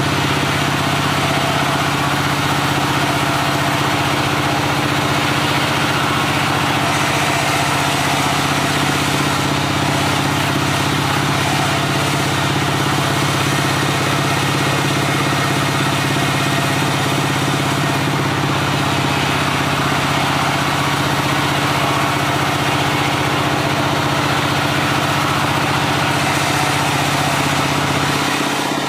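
Diesel engine powering a log sawmill, running steadily under a constant note; the low engine tone drops away and the level falls slightly just before the end.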